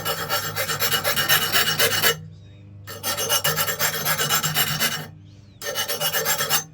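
A 65 HRC hardness-testing file scraped back and forth along a heat-treated knife edge in three runs of quick strokes. The file skates over the steel without biting, a sign that the blade is harder than 65 HRC and the heat treat went well.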